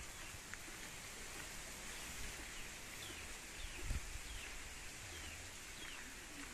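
Faint outdoor ambience with a steady hiss. From about halfway through, a bird repeats a short falling chirp several times at even spacing, and there is one soft thump near the middle.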